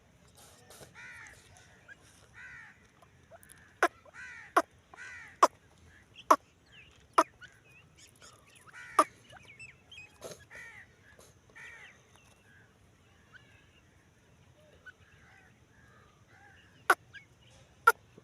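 Francolin (teetar) giving a run of short, harsh, arched calls, one every half second to a second, with sharp clicks among them; the calls thin out after about twelve seconds, leaving a few clicks near the end.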